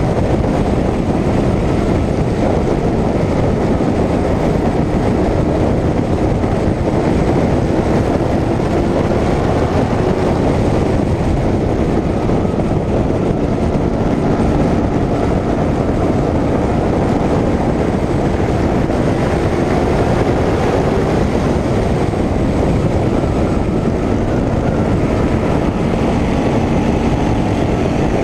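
Short-track stock car's engine running hard at racing speed, heard through an onboard camera on the car with loud wind and road noise mixed in; steady throughout.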